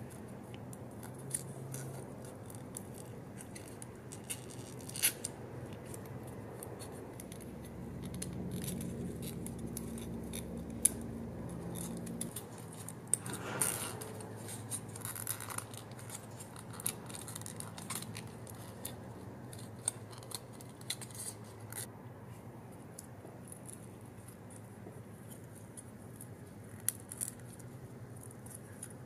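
Stiff printed cardstock being folded and pressed between the fingers: scattered light clicks and crackles as creases are pressed and the paper pieces are fitted together, with a denser crackle about halfway through.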